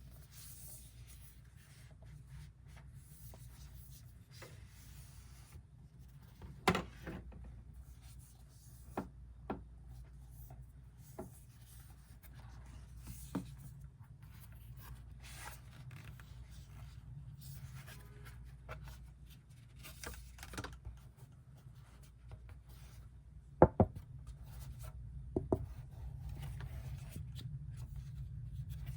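Packaging being handled and opened: soft rubbing and scraping, with scattered light taps and clicks. The loudest is a pair of sharp clicks about three-quarters of the way through.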